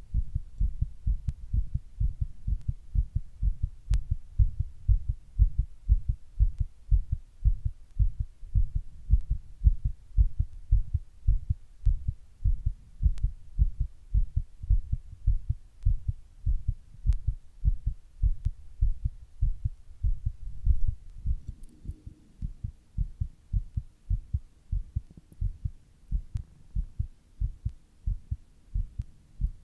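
Human heartbeat, fast, as an even run of low thuds. The beats weaken briefly about two-thirds of the way through.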